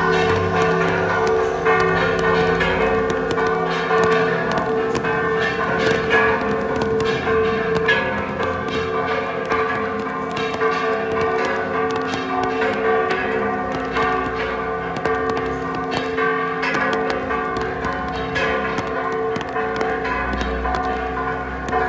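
Church tower bells rung in a festive repique: the bells are struck rapidly and continuously, each new strike landing over the ringing of the last. The peal announces the parish's patronal feast.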